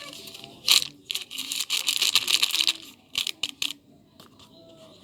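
Gift packaging crinkling and rustling as it is handled, followed by a few quick sharp clicks a little after three seconds in.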